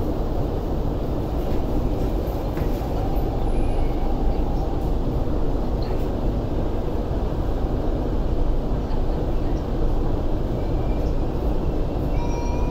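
Steady running noise inside an MTR C-train car as the train moves forward slowly along the platform to correct its stopping position after underrunning it. A few faint high tones come in near the end.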